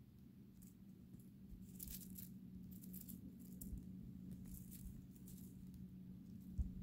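A small mole in dry pine-needle litter making faint, brief, very high-pitched sounds in a few small clusters, over a low steady hum. There is a short low thump near the end.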